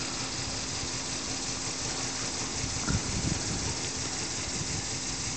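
Small model elbow engine ticking over at about 20 psi: a steady hiss with its mechanical running noise underneath, and a brief louder bump about three seconds in.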